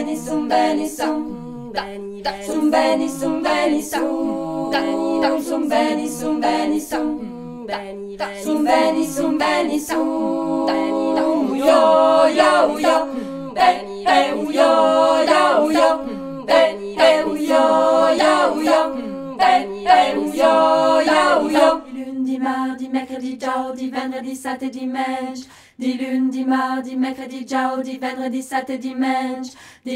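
A cappella vocal ensemble singing as soundtrack music, several voices in harmony with no instruments. About 22 seconds in, the singing changes to a steady held low drone with a softer melody above it.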